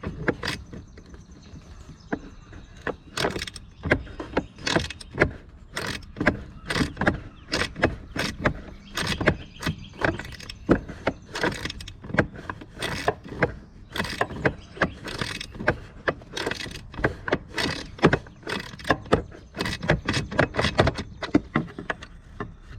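Hand ratchet worked in quick short strokes on a fastener, a long run of sharp metallic clicks about two a second.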